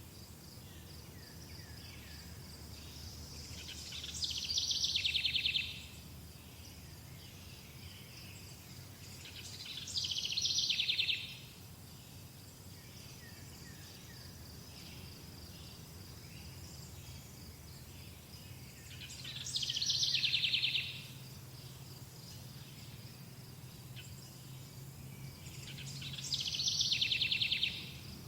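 A songbird repeats a loud, fast trilled song four times. Each phrase lasts about a second and a half, falls in pitch as it swells, then stops abruptly. Under it runs a steady high chirring of insects.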